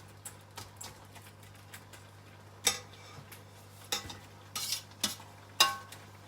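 A metal utensil clinking and scraping against a pan while stirring shrimp: half a dozen sharp clinks in the second half, the loudest near the end ringing briefly.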